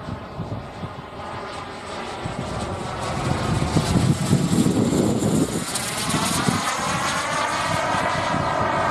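Jet Munt 100 model turbine engine of a radio-controlled model jet running in flight as it makes a pass. The rushing whine builds to its loudest about four to five seconds in, and its high whistle drops in pitch as the jet goes by.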